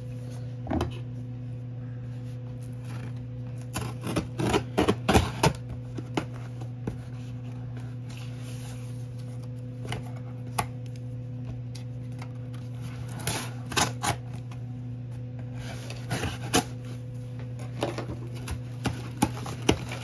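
Hands peeling the packing tape and label off a cardboard shipping box: bursts of crackling and tearing, loudest about four to five seconds in and again near the end, over a steady low hum.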